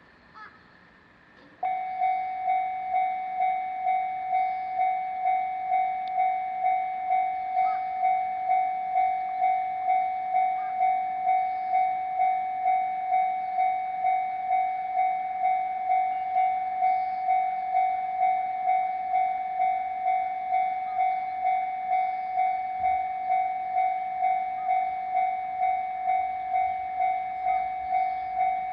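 Japanese level-crossing warning bell switching on about two seconds in and then ringing steadily, an even repeated ding just under twice a second, warning that a train is approaching.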